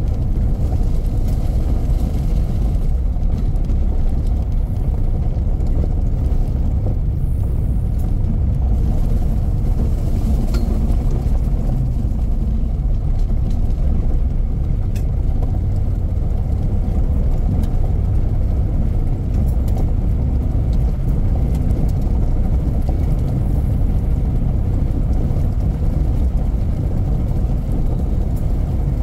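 Steady low rumble of a car driving along a gravel road, heard inside the cabin: tyre and engine noise at an even level.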